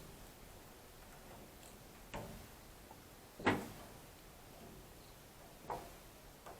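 Three separate sharp knocks about a second and a half apart, the middle one loudest, over a low steady background.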